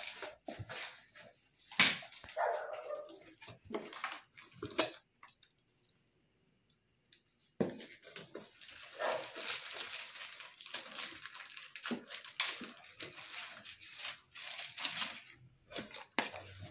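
Cardboard box and its packing being handled: flaps folding open, then crinkling and rustling of plastic bags and paper with scattered knocks and clicks. The handling stops for a couple of seconds about halfway.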